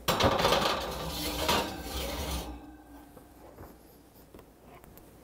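Baking dish scraping over a metal oven rack as it is slid into the oven, a rough rasping for about two and a half seconds that then stops.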